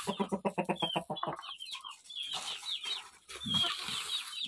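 Caged chickens clucking while they are being fed: a fast run of short clucks for the first second and a half, then high calls that slide downward in pitch.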